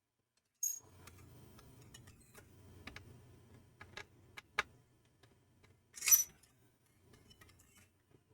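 Scattered metallic clicks and taps of a long hex screwdriver working the CPU heat-sink screws, with a sharper clink about six seconds in and a faint low handling rumble beneath.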